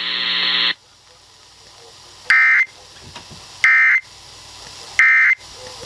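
A buzzy tone cuts off just under a second in. Then come three short, identical screeching data bursts, evenly spaced over a background hiss. These are the EAS/SAME end-of-message (EOM) tones on NOAA weather radio, marking the end of the severe thunderstorm warning broadcast.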